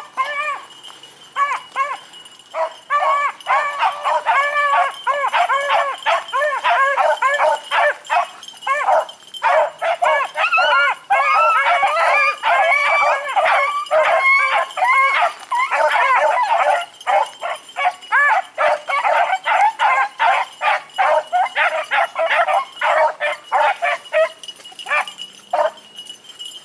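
A pack of beagles baying in quick, overlapping calls while running a rabbit on scent; the calls thin out and stop shortly before the end.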